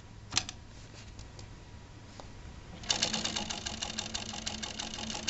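Consew 282R-1 postbed needle-feed industrial sewing machine, run by a servo motor, starts stitching about three seconds in: a fast, even clatter of stitches over a steady hum. Before that there is a single click.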